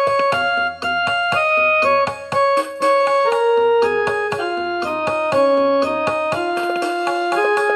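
Piano playing a melody in Raag Bhupali, the five-note Hindustani raga, with struck notes following one another several times a second.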